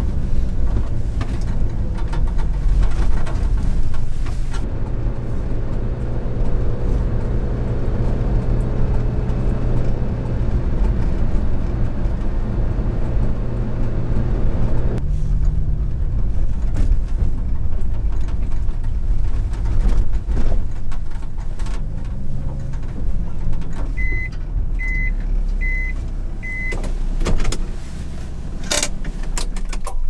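Light truck driving: steady engine and road noise heard from inside the cab, with the engine note changing about halfway through. Near the end come four short, evenly spaced electronic beeps, then a few clicks.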